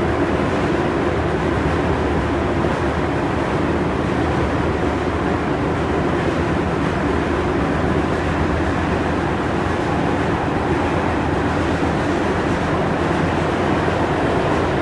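Interior running noise of a Tokyu 3000 series subway train at steady speed in the tunnel: an even rumble of wheels on rail with a hum that neither rises nor falls.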